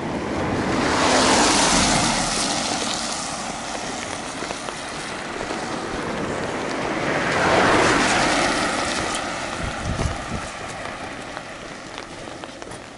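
Two road vehicles passing close by one after the other, their tyre and engine noise swelling and fading, the first about a second and a half in and the second near eight seconds.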